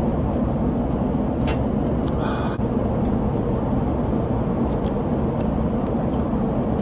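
Steady drone of an airliner cabin in flight, engine and airflow noise, with a few faint clicks and a short rustle about two seconds in.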